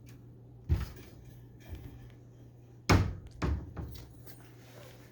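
Closet doors being shut: a knock under a second in, then a louder knock about three seconds in with a smaller one just after.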